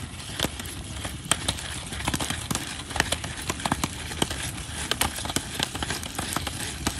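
Wood campfire crackling with irregular sharp snaps, while a popcorn pan is shaken back and forth on the metal grill grate over it, knocking and scraping against the grate.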